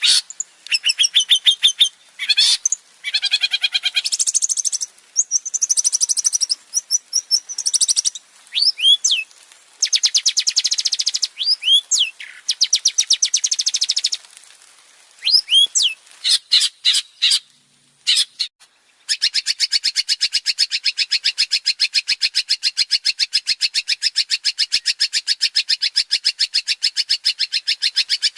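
Male long-tailed shrike (cendet) singing a varied, high-pitched song of fast repeated notes and sharp whistled glides. About two-thirds of the way in it breaks into one long, unbroken rapid chatter.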